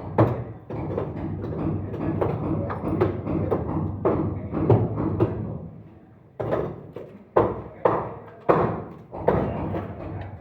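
Hammer blows on wood. There is a sharp knock just after the start, then a stretch of duller knocking, and five strong blows in the second half at about one every half to two-thirds of a second.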